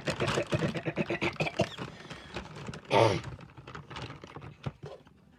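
Jiggly slime with foam balls being squeezed and worked by hand, making rapid wet clicking and popping. There is a louder squelch about three seconds in, and the clicks thin out toward the end.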